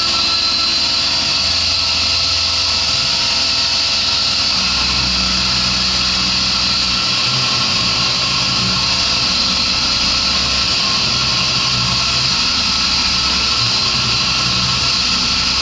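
CNC mill end-milling aluminium, the spindle running steadily under a constant hiss from the mist coolant sprayer. The low hum of the axis stepper motors steps to a new pitch every few seconds as the feed moves change.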